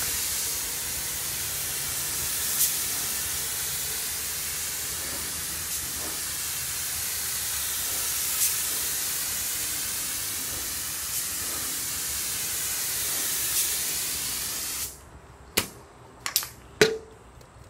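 Gravity-feed spray gun on a compressed-air hose hissing steadily as it lays the third coat of top coat on a car panel. The hiss cuts off about three seconds before the end, followed by a few sharp clicks and knocks.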